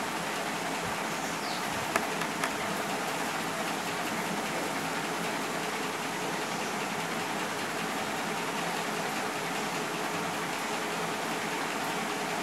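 Steady background noise with a faint even hum underneath, and two light clicks about two seconds in.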